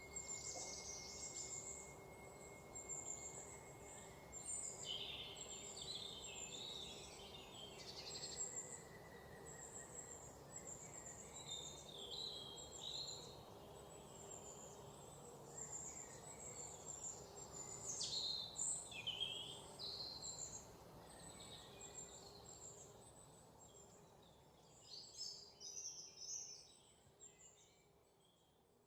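Faint birdsong: many short chirps and whistles from several birds, over a low steady hum. It fades away near the end.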